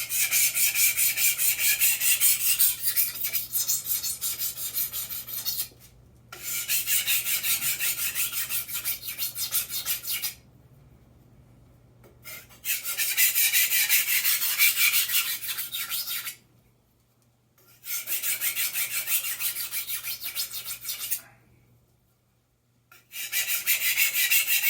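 Japanese kitchen knife blade rubbed back and forth on a wet, roughly 350-grit cutting whetstone to set the edge: quick, even scraping strokes in runs of about four to five seconds, with short pauses between runs.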